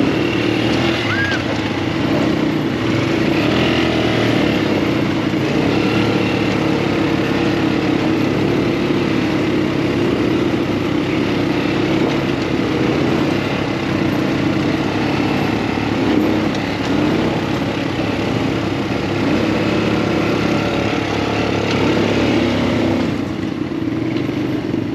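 Off-road buggy's small engine running steadily while riding, its pitch shifting a little with the throttle.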